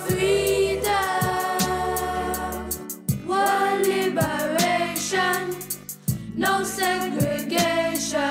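A reggae song playing: sung vocals over a bass line and a steady hi-hat.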